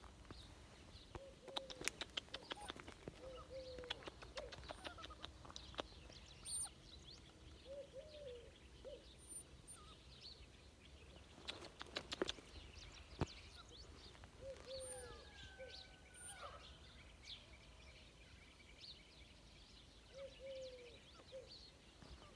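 Small birds chirping faintly, with a few short low calls that come in twos and threes, and scattered sharp clicks.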